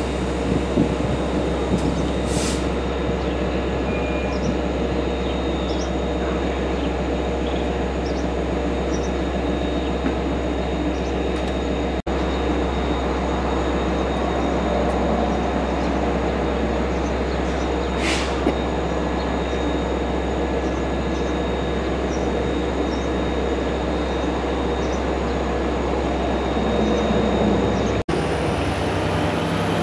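Long Island Rail Road diesel train running steadily with a constant low engine drone, with two brief high hisses about two and eighteen seconds in. The drone drops away near the end.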